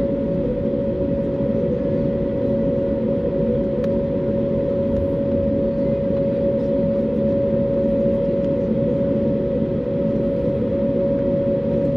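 Cabin noise inside an Airbus A321neo taxiing after landing: a steady low rumble from the rolling airliner with a steady humming tone over it.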